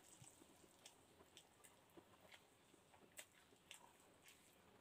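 Near silence with faint, scattered wet clicks and squishes of a person chewing pancit noodles and picking them up by hand.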